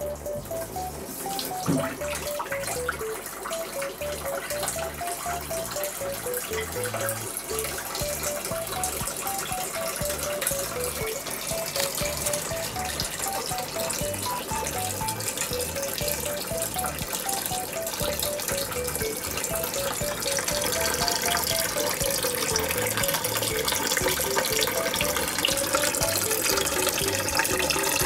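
Water running steadily from a tap into a sink, growing louder in the second half, under light background music with a plinking melody.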